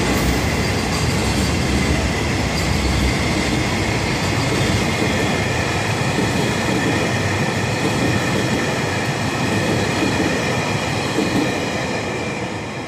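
Freight train wagons rolling past: a steady, loud rumble and rattle of wheels on rail with thin high squealing tones over it, easing off slightly near the end.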